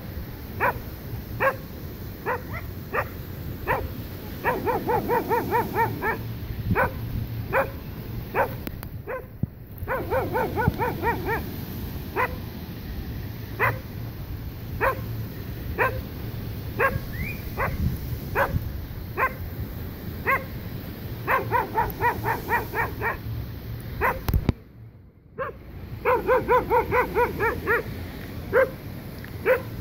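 A dog barking over and over, about two high barks a second. Several times the barks come in quicker yapping runs. Near the end a knock is followed by about a second's gap before the barking resumes.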